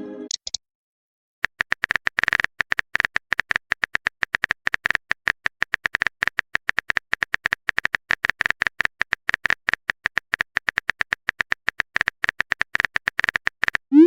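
Keyboard typing sound effect: a fast, uneven run of key clicks, about six a second, starting about a second and a half in and running until just before the end.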